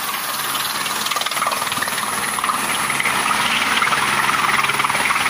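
Light turbine helicopter landing on a helipad: steady rotor chop and turbine whine with a rushing hiss of rotor wash, growing a little louder as it settles.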